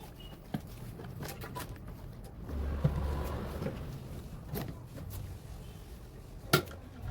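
Scattered clicks and knocks of parts being handled, with a louder rustling, scraping stretch about two and a half seconds in and a sharp click near the end.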